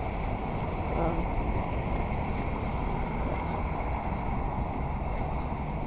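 Steady low rumble of city traffic, with wind noise on the microphone.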